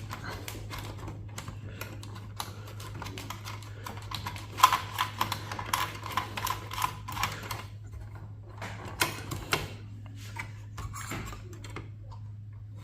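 Irregular clicks, taps and rattles of small server parts being worked loose and unscrewed by hand, coming in flurries around the middle, over a steady low hum.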